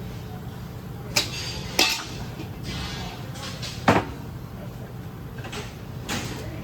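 Metal gear-pump parts knocking and clinking as they are handled and set down: a few sharp clanks, the loudest about four seconds in.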